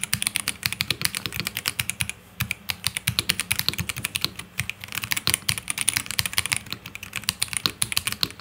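Typing on an ROG Azoth gasket-mounted mechanical keyboard with its stock ROG NX Red linear switches: a fast, continuous run of keystroke clacks, with a brief pause about two seconds in.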